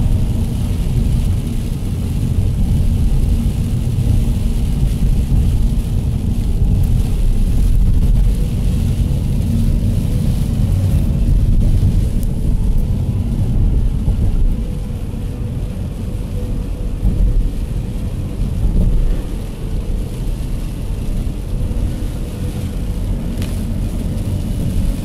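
Steady low rumble of a car driving on a rain-soaked road, heard from inside the cabin, with a hiss of tyres and water spray. The level eases a little about halfway through.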